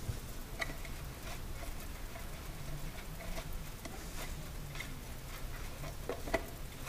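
Light plastic clicks and taps at irregular times as hands handle and fit a white plastic end piece onto a refrigerator dairy compartment, the sharpest click near the end, over a low steady hum.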